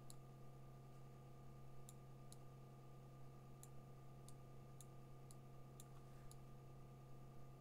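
Near silence over a steady low electrical hum, with about eight faint, sharp computer mouse clicks starting about two seconds in, roughly two a second.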